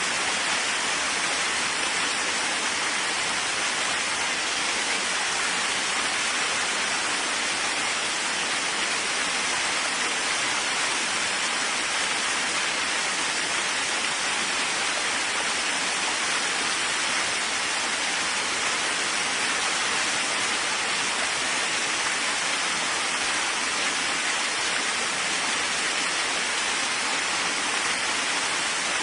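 Steady heavy rain: an even, unbroken hiss with no thunder.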